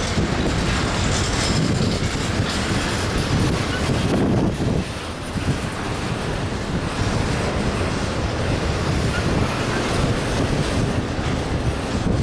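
Train cars rolling past on the rails in a steady, continuous rumble, with wind buffeting the microphone.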